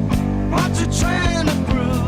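Background rock music with guitar and drums, at a steady beat.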